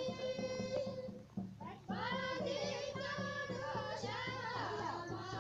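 A group of women singing a folk song together over a steady low rhythmic pulse. A phrase breaks off about a second in, and the singing starts again shortly after.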